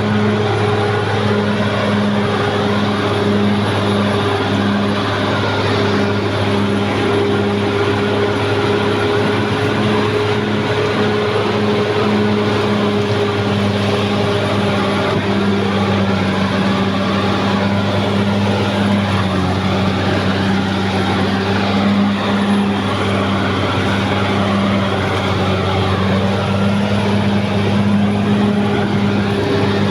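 Caterpillar D6R XL bulldozer's diesel engine running steadily, a constant engine note that barely changes.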